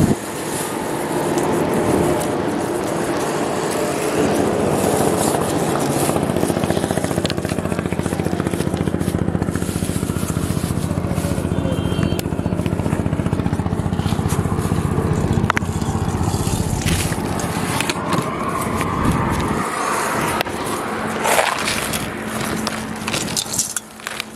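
A motor engine running steadily, dying away about twenty seconds in, with occasional light clicks over it.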